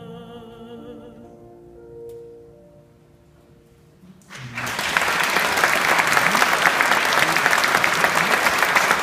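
A female soloist holds the last note of a song with a slight vibrato, and the sound dies away. About four seconds in, loud applause from the audience and the male voice choir breaks out and keeps going.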